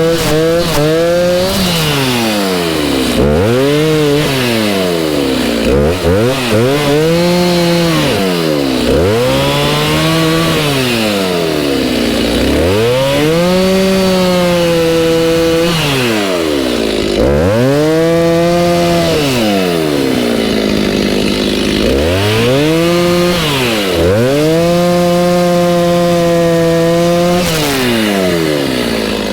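Two-stroke chainsaw cutting a large walnut trunk into firewood lengths. The engine runs at high revs, then drops sharply and climbs back about eight times, each dip lasting a second or two.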